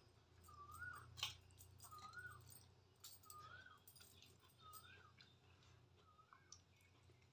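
Near silence, with an animal's short wavering call repeated about six times, roughly once every second and a quarter, and a few faint clicks.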